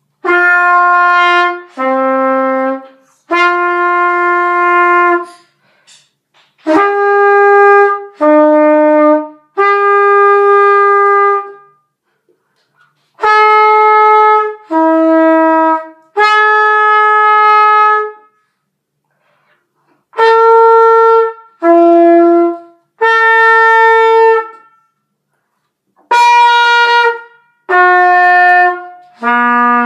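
Solo trumpet playing a range and flexibility exercise: five phrases of three held notes, mostly high-low-high, with a short rest between phrases. The later phrases start higher than the first.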